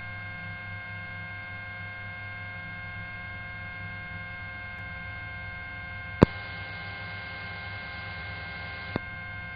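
Steady electrical hum with several constant tones on the patrol helicopter's radio audio line, with no one transmitting. A sharp click comes about six seconds in, and a fainter one near the end.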